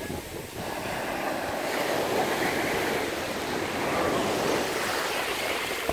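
North Sea surf: small waves breaking and foam washing up over the sand, a steady rushing that swells again about half a second in.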